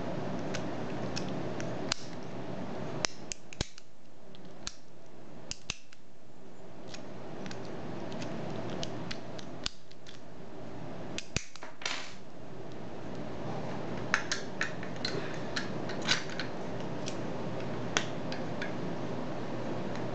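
Scattered sharp metallic clicks and taps from an American padlock and the tools on it being handled, over a steady background hum.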